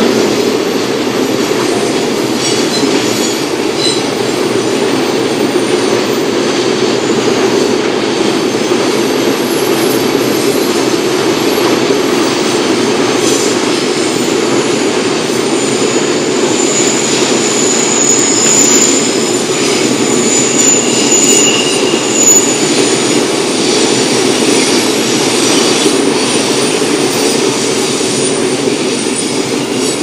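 Long freight train of red wagons running past below, a steady rumble of wheels on rail. For a few seconds in the middle, a thin high-pitched wheel squeal comes and goes.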